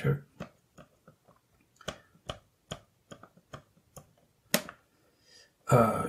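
Fingertips tapping keys one after another on a Timex Sinclair 1000 (ZX81) flat membrane keyboard: about ten separate taps, two or three a second, the loudest about four and a half seconds in. Each key is being tested in turn after the keyboard was rewired with a ribbon cable.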